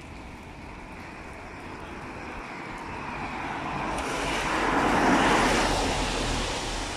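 A vehicle passing on a wet road: a rush of tyre hiss that swells to a peak about five seconds in, then fades.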